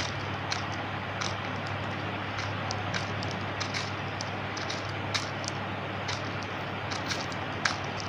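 Lutino budgerigar pecking at and cracking seed, heard as small sharp clicks at irregular intervals over a steady background hiss and low hum.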